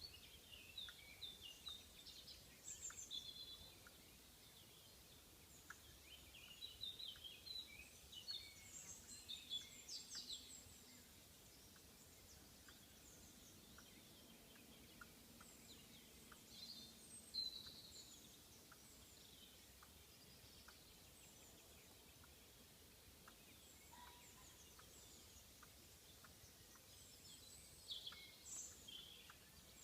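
A squirrel making a faint, regular little clicking, about one click a second. Small birds chirp in bursts over it.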